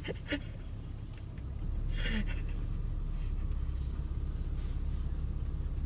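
Low steady rumble of a car heard from inside the cabin, rising about a second and a half in as the car moves forward along the track. A short noisy rasp comes about two seconds in.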